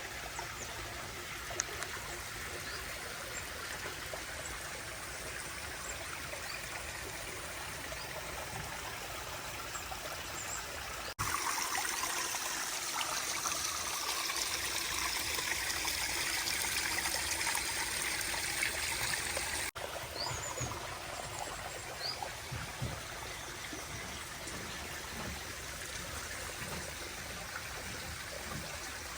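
Water running and trickling over rocks down a pondless waterfall stream. It turns abruptly louder and brighter about eleven seconds in and drops back just as suddenly about twenty seconds in.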